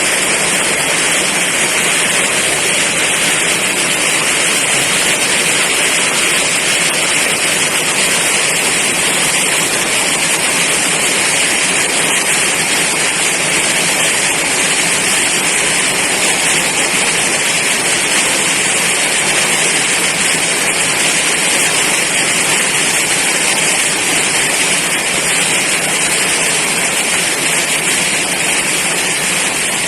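Heavy rain pouring down in a storm: a loud, steady hiss of downpour that does not let up.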